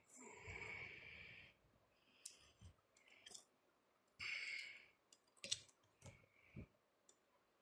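Faint clicks of multimeter test probes being handled and touched against a transistor's leads, with two soft rustles.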